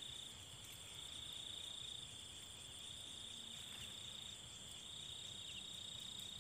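Faint chorus of night insects, crickets, trilling steadily at a high pitch, the trill swelling and easing about every second.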